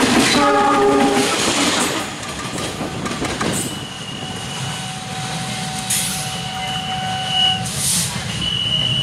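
KAI diesel locomotive at a level crossing: its horn sounds a chord of several notes for about the first two seconds as it passes close. After that a steady low engine and wheel rumble runs on, with a thin high tone that comes and goes and a few short hissing bursts.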